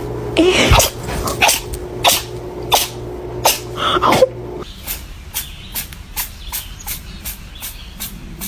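A cat sneezing over and over in a long unbroken series, about one and a half short sharp sneezes a second.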